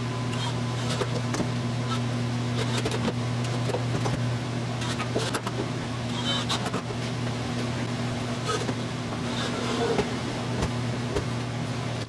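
A steady low hum throughout, with irregular clicks and knocks as a cordless drill drives screws into a pine drawer and the wood is handled.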